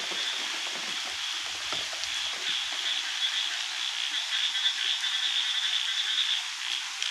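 Frogs croaking in a night chorus over a steady high-pitched trill. The croaks come in repeatedly from about three seconds in, after some low knocks and rustling over the first couple of seconds.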